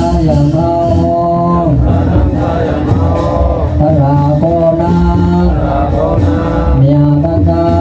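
Voices chanting a melodic prayer, with long held notes that rise and fall over a steady low tone.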